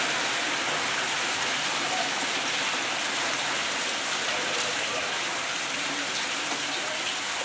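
Heavy rain and hail falling on a paved road: a dense, steady hiss with scattered small ticks.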